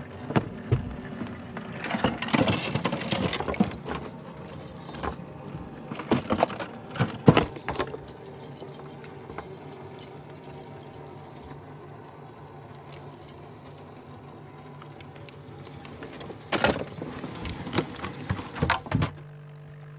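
Clattering, knocking and metallic rattling of gear being handled on a fishing boat while a caught crappie is dealt with and the live well hatch is worked. The knocks come thickest a couple of seconds in and again near the end, and a low steady hum runs underneath in the second half.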